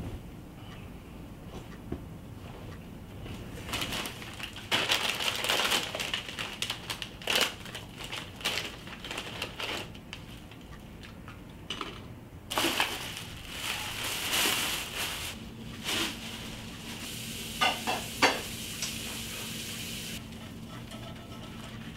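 Crinkling and rustling of a plastic shopping bag and snack wrappers as rubbish is cleared off a table, in irregular bursts. About two-thirds through, a faint steady low hum starts, with a few sharp clicks.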